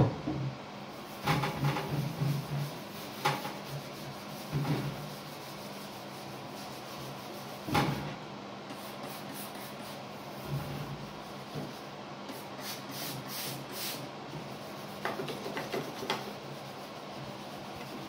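A sponge rubbing and scrubbing over a microwave oven's metal casing, wiping off degreaser and grease. It comes in short irregular bouts, with a few knocks as the sponge and hand bump the casing.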